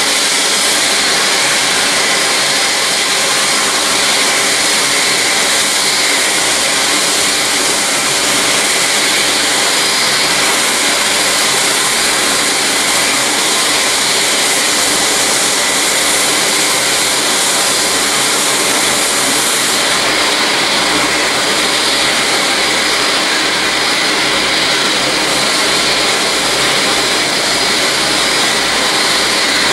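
Boeing 777's two turbofan engines at takeoff power as the jet rolls and climbs away: a steady, loud jet engine noise with no breaks.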